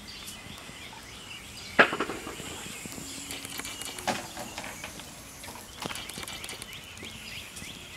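A few sharp knocks against a quiet outdoor background, the loudest about two seconds in and smaller ones around four and six seconds.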